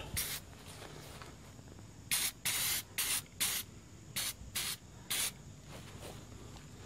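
Aerosol spray-paint can hissing in short bursts as light coats are sprayed on: one brief spray at the start, then about seven quick sprays in a row from about two seconds in.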